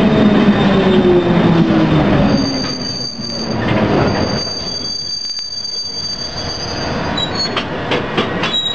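London Underground C Stock train slowing down. Its motor whine falls in pitch for the first couple of seconds, then a high steady squeal sets in and fades out about seven seconds in, with a few clicks near the end, as the train brakes into a station.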